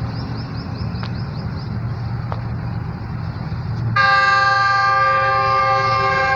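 Pakistan Railways GU40 diesel-electric locomotive hauling an express: a steady low rumble, then about four seconds in the locomotive's air horn starts, a loud blast of several notes together held steadily.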